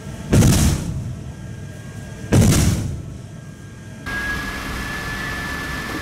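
Two shots from the frigate's 130 mm A-192M bow gun, about two seconds apart, each a sharp boom that dies away within half a second. About four seconds in the sound cuts to a steady noise with a thin, high, steady tone.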